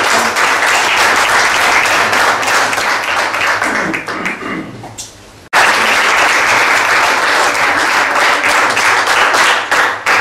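A small group of people applauding with hand claps. The clapping dies away about five seconds in, cuts off, starts again at full strength and fades out near the end.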